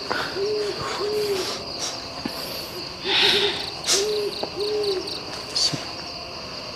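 An owl hooting: short, even hoo notes, some single and some in quick runs of two or three, over steady insect chirping.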